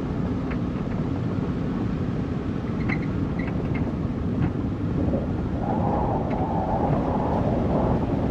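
A vehicle driving along a dirt road: a steady low rumble of tyres and engine, with a few scattered small clicks.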